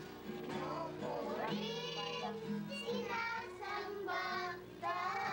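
Choir of young children singing a song together, in phrases of about a second each, over steady held low notes.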